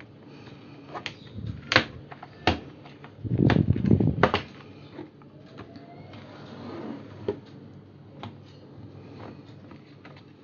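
Plastic bottom cover of a laptop being pried off with a card: a series of sharp clicks as the snap clips pop loose, with a louder stretch of scraping about three to four seconds in.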